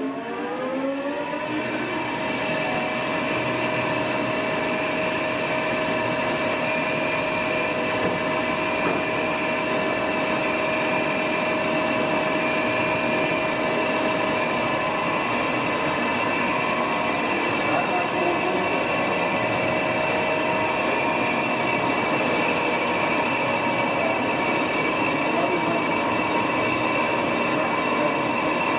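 Chevalier FCL-40160 teach-in lathe running, its whine of several tones rising as it finishes spinning up in the first second or two, then holding at a steady speed.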